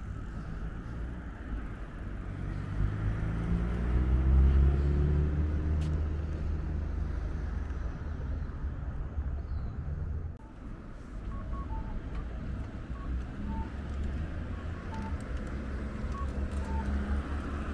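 City street traffic: a motor vehicle passes close by, its engine note rising as it accelerates and loudest about four seconds in, then a steady traffic rumble. In the second half a string of short high beeps sounds over it.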